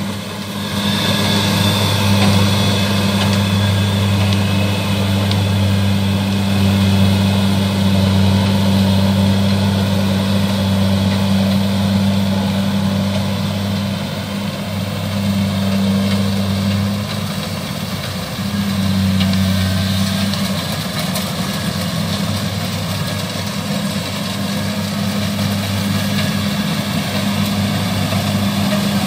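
Kubota DC70 combine harvester's diesel engine running steadily under load as it harvests rice, with a low, even hum that dips briefly about two-thirds of the way through.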